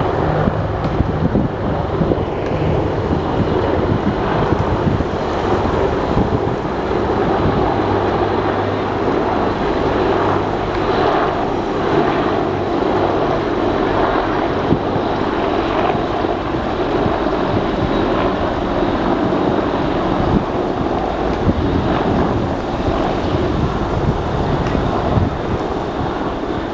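Several AH-64 Apache helicopters flying overhead in formation: a loud, steady rotor and engine drone with a low hum underneath that holds throughout.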